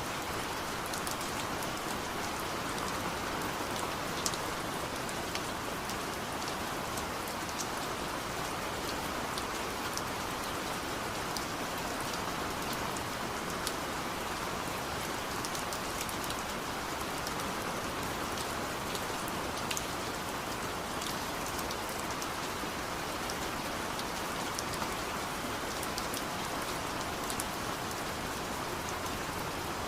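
Steady rain falling, an even hiss with scattered sharper drop ticks throughout.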